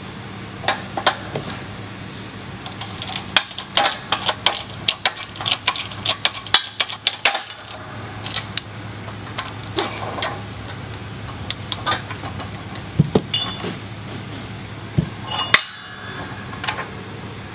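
Irregular metallic clicks and clinks from a hydraulic bottle-jack shop press being pumped to push the bearing out of a Sanden A/C compressor clutch pulley, with the steel fixture and pulley knocking on the press bed as they are handled. The clicks come thick and fast for a few seconds, then thin out to occasional knocks, over a steady low hum.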